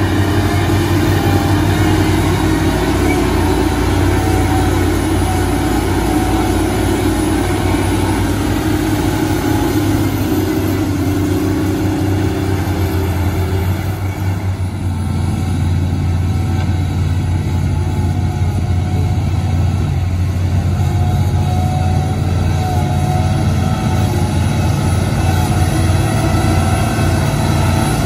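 XCMG LW500FV wheel loader's diesel engine running steadily under load as the loader pushes and scoops dirt, a continuous low drone; it dips briefly about halfway through.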